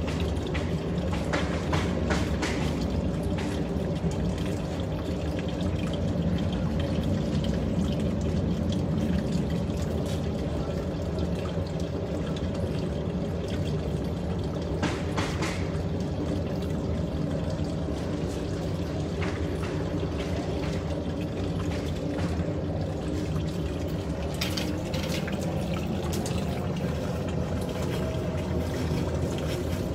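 Portable mini glass furnace running with a steady rushing noise while it is lit, with a few brief clicks now and then.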